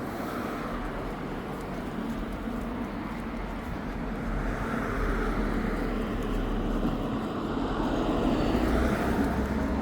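A motor vehicle going by: a steady rushing noise with a low hum, growing louder toward the end.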